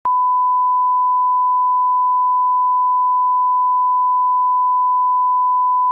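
Steady 1 kHz sine test tone, the line-up reference tone that goes with colour bars, held at one unchanging pitch after a click at its start.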